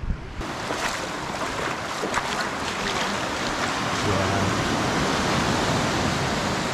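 Small waves washing in over a shallow, weed-covered rock shelf at the water's edge: a steady wash of surf.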